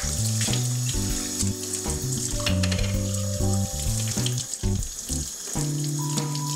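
Kitchen tap running in a steady stream onto a clear container held and rubbed by hand under it, over background lounge music.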